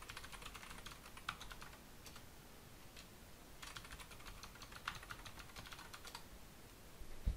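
Typing on a computer keyboard, fairly quiet: a short run of keystrokes, a pause, then a longer quick run of keystrokes, with a single click near the end.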